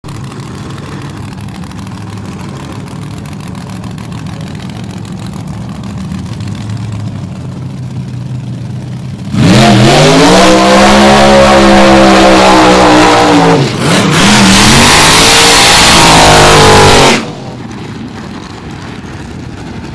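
Drag-racing car engine idling at the line, then launching at full throttle about nine seconds in, very loud, its pitch climbing. The pitch drops briefly about four seconds later at a gear shift, climbs again, and the sound cuts off sharply near the end.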